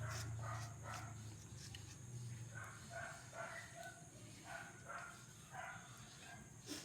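Short repeated animal calls, about two a second, over a low hum that fades out in the first couple of seconds.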